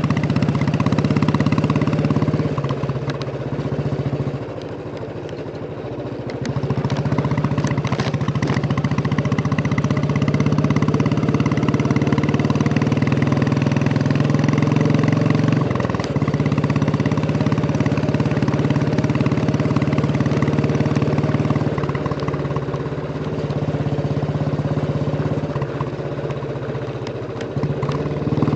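Royal Enfield Bullet 350's single-cylinder engine thumping through its exhaust while riding, dropping in loudness for a few seconds twice.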